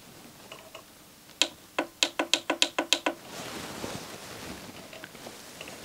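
Yamaha DVD-E600 disc drive mechanism clicking rapidly, about nine sharp clicks in under two seconds, as the player tries to read the loaded CD and does not play it. A faint whir follows.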